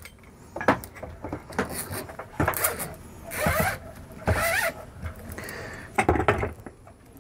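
Handling noise of braided faucet supply hoses and a rubber pull-down hose being fed through a faucet's metal shank and retaining clip: scattered light clicks and knocks, with rubbing scrapes as the hoses slide against the metal.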